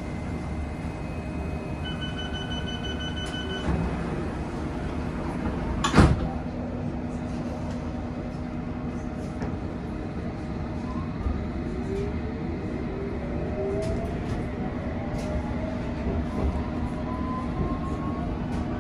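London Underground S8 Stock train at a station: a quick run of door-closing beeps, then the sliding doors bang shut about six seconds in. The train pulls away over a steady rumble, its traction motors giving a rising whine as it picks up speed.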